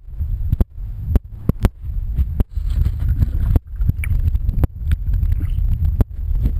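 Muffled low rumble of river current heard through an underwater camera, broken by about ten sharp clicks and knocks at irregular intervals.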